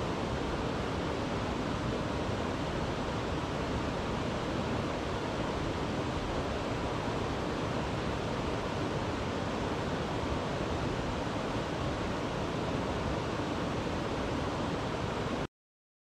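Steady rushing of water from a small waterfall pouring into a pool, cutting off suddenly just before the end.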